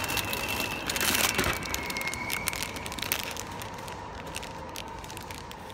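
Plastic snack bag crinkling and rustling as it is pulled out of a vending machine's pickup slot, with handling knocks against the flap. The crackle is densest about a second in and thins out after three seconds.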